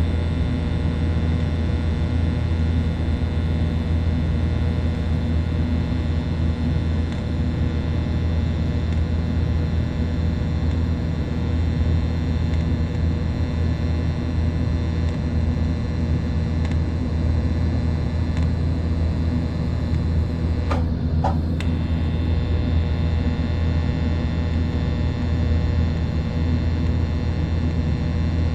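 Steady low electrical hum of a welding machine running while the exhaust valve seat of a cylinder head is tack-welded. Two short sharp clicks come about two-thirds of the way through.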